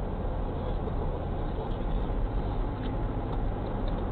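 Steady vehicle engine and road rumble heard inside a car through a dashcam's microphone, with no impacts or sudden changes.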